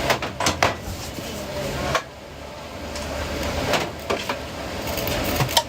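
Kitchen clatter: a handful of sharp knocks and clanks from containers and utensils being handled, over a steady low hum.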